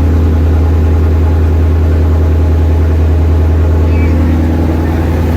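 Car engine idling steadily just after start-up, running on a freshly installed Ford Performance PP2 tune.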